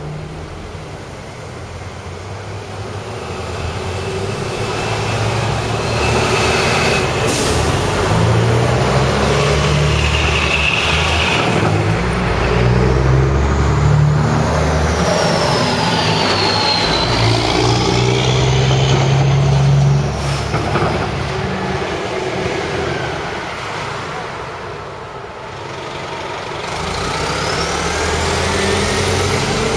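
City transit bus engine running as buses and cars move through traffic. The engine grows louder toward the middle, with a whine that falls and then rises in pitch and a second rising whine near the end.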